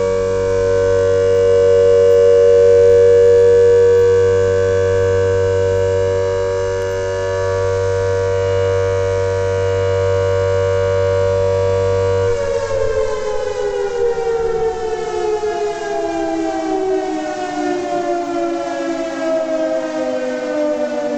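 Civil defense siren sounding a steady, loud tone as an emergency alarm. About twelve seconds in, its pitch starts to fall slowly and keeps falling.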